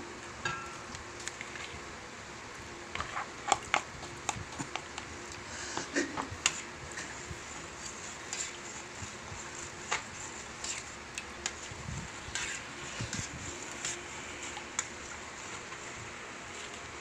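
A ladle stirring tapioca pearls into a pot of milk, with scattered clinks, knocks and scrapes of the ladle against the pot over a steady hiss.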